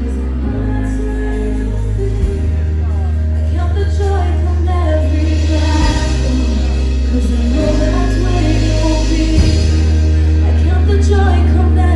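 Live contemporary worship music: a worship band with several singers on microphones, over held bass and keyboard notes that change chord every second or two.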